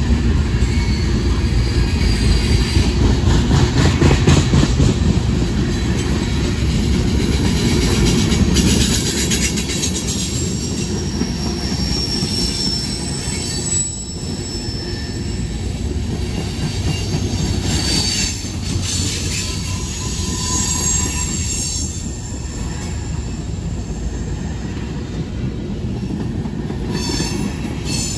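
Freight cars of a CSX train rolling past close by: a steady rumble of steel wheels on the rails, with brief high-pitched wheel squeals now and then.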